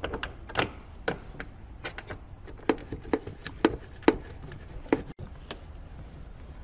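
8 mm ratcheting combination wrench turning a tail-light mounting nut, giving sharp metallic clicks about two a second, unevenly spaced.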